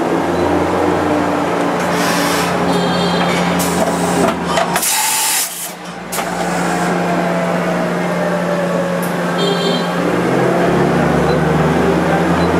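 Okuma MX45VAE vertical machining center running with its spindle turning at test speed, a steady hum. From about two seconds in come hisses of air, the loudest and longest about five seconds in.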